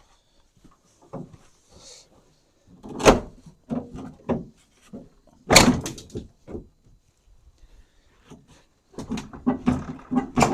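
Metal knocks and clanks from body parts on a pickup's front end being worked loose. There are two loud bangs about three and five and a half seconds in, and a quick run of knocks near the end.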